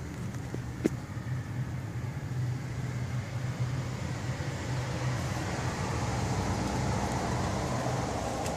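Steady motor-vehicle noise: a low engine hum with a rushing haze that swells slightly after the middle, and one sharp click about a second in.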